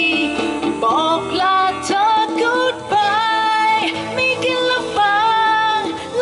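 Woman singing a Thai-language song into a microphone, holding several notes for about a second with a wavering pitch, accompanied by an electric guitar, all amplified through a PA.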